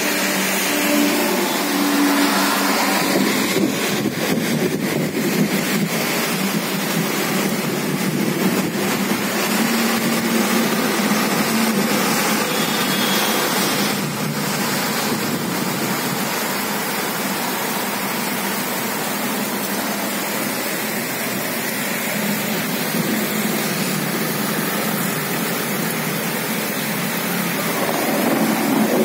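Heavy rain and wind: a loud, steady, even hiss.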